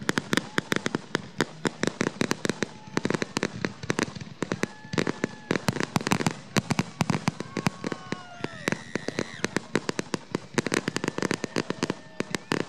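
Aerial firework shells bursting in quick succession, a dense, unbroken run of bangs and crackles.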